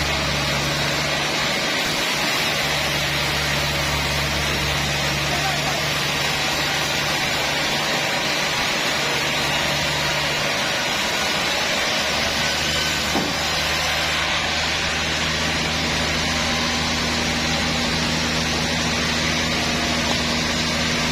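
Sawmill machinery running steadily, a constant mechanical din with a low motor hum underneath that dips briefly about halfway through.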